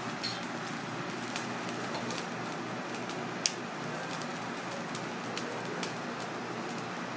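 Fish broth boiling hard in a small pan over a gas burner: a steady bubbling hiss with scattered pops, and one sharp click about three and a half seconds in.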